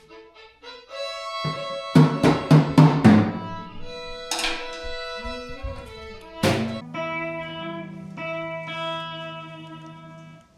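Instrumental music on guitar and fiddle with drum accents: four loud struck hits in quick succession about two to three seconds in, two more single hits after that, then held notes that fade away near the end.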